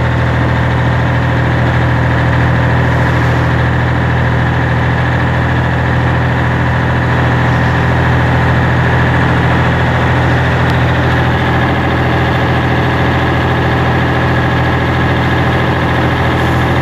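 FNM 180 truck's diesel engine running steadily at an even pitch while on the road.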